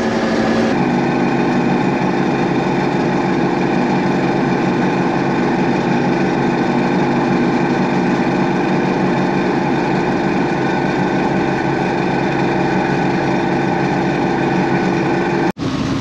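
John Deere 6620 combine running steadily, heard from inside the cab: an even engine and machinery hum with several steady tones. It cuts off abruptly near the end.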